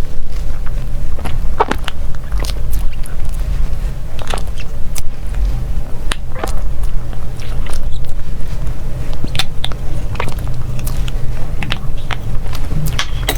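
Close-miked eating of desserts: irregular sharp bites and crunchy clicks with chewing, over a steady low rumble.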